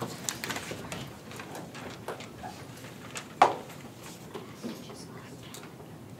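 Small clicks and rustles of people handling papers and laptops, with one sharp knock about three and a half seconds in as something is set down on a wooden podium.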